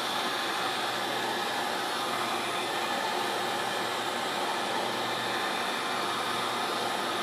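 Heat gun running steadily on its low setting, an even blowing hiss with a faint hum, drying the application water left under a freshly squeegeed vinyl decal.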